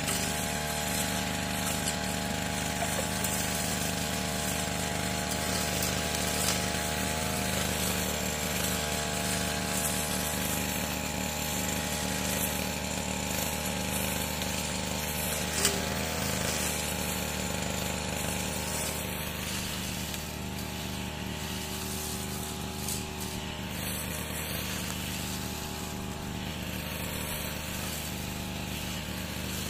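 Yamamax 338 Pro two-stroke brush cutter engine running steadily, a little quieter from about two-thirds of the way through.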